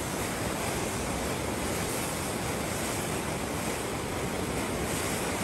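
Kuiseb River in flash flood: muddy floodwater rushing through the canyon in a steady, unbroken rush.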